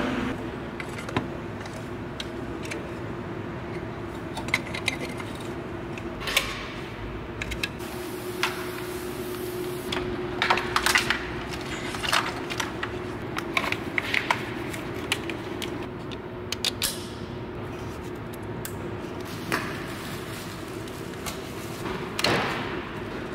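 Hand work at the valve cover of a BMW 528i: scattered clicks and light metallic and plastic clatter as tools and engine parts are handled and fitted, with a cluster of sharper clicks about ten to fifteen seconds in.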